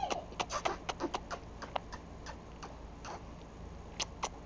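Kissing noises: a run of quick, sharp lip smacks made with puckered lips close to the microphone. They come fast for the first couple of seconds, then more sparsely, with two more near the end.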